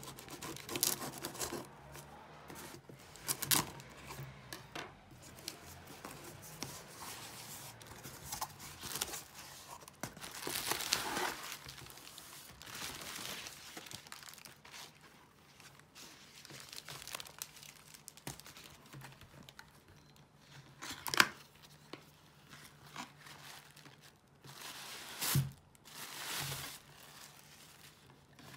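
A cardboard parcel being unpacked: a knife slitting the packing tape, tape tearing and cardboard flaps pulled open, then bubble wrap rustling and crinkling as the contents are unwrapped. Irregular bursts of rustling, with one sharp tap about two-thirds of the way through.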